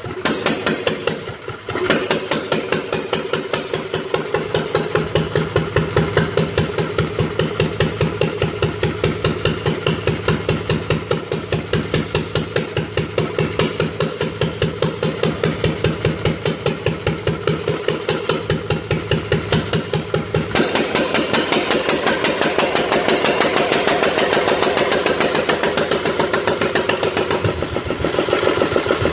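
Ruston 1VSH single-cylinder diesel engine running on its first start, with a steady, even beat of firing strokes; it falters briefly about a second in, then picks up again, and its note changes about 20 seconds in. It is running on a badly faulted injector.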